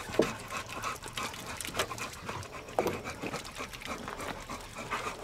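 A hog-hunting bay dog panting, winded after baying hogs.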